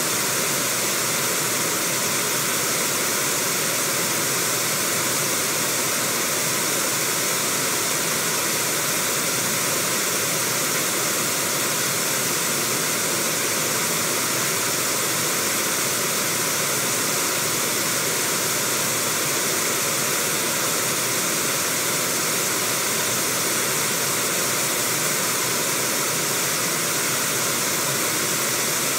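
Fast river water rushing over rocky rapids: a steady, even wash of white-water noise.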